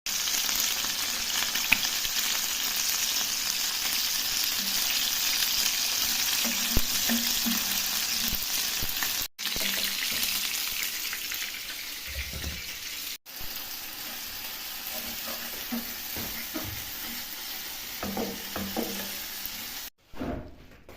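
Chicken and potatoes sizzling as they fry in hot oil, with occasional knocks and scrapes of a utensil stirring the pan. The sizzle cuts out suddenly twice and is quieter in the second half.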